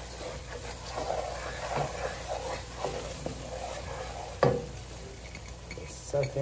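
Wooden spoon stirring onions through a hot, dark roux in a cast-aluminum Magnolite pot: irregular scraping strokes over the sizzle of the onions frying in the roux. One sharp knock about four and a half seconds in.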